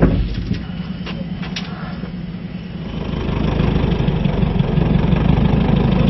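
An engine starts up about three seconds in and then runs at a steady idle, after a few light clicks.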